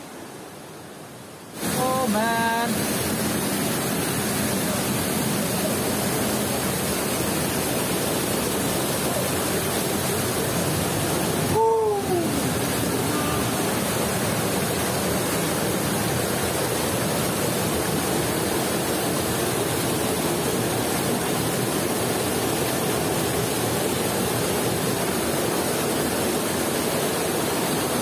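Water of the stream at the top of a waterfall rushing over rock, a loud steady rushing noise that sets in abruptly about a second and a half in. A brief voice sounds twice, about two seconds in and near twelve seconds.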